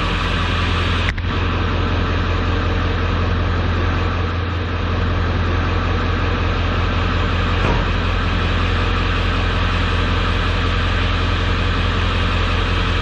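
1995 Ford F-250's 7.3-litre Powerstroke turbo-diesel V8 idling steadily, running again after a new glow plug relay cured its no-start. A short click about a second in.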